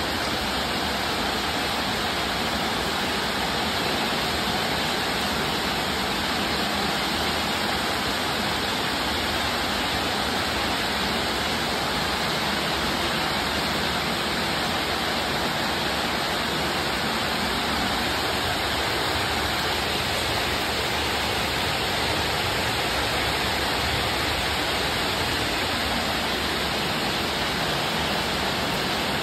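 Steady rushing of water, an even unbroken noise.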